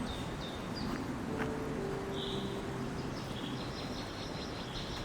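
Songbirds chirping and calling, several short chirps and one longer call about two seconds in, over a steady low background rumble.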